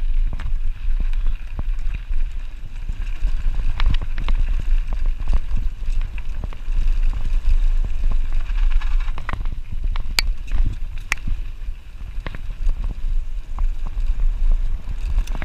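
Wind noise on the action camera's microphone during a mountain-bike descent on a rough dirt and grass trail, with the Radon Slide 150 full-suspension bike rattling over bumps in scattered sharp clicks and knocks, a couple of them louder about two-thirds of the way through.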